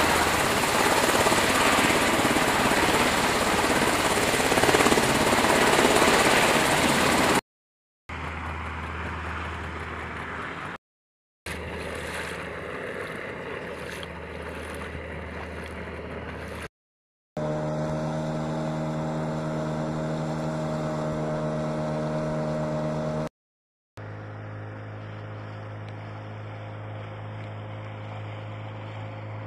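Black Hawk helicopter hovering low over water, its rotor noise and downwash spray loud for the first seven seconds. Then, after brief cuts to silence, quieter clips of steady engine drone from boats on the water, one with a strong, even pitch.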